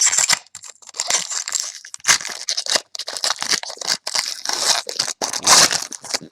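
Foil trading-card pack wrapper being torn open and crinkled by hand, a run of irregular crackles and rips.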